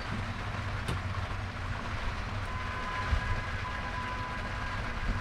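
Heavy thunderstorm rain and wind, a steady rushing hiss with a low rumble of wind on the microphone and a few sharp drip clicks. A faint steady high tone joins about halfway through.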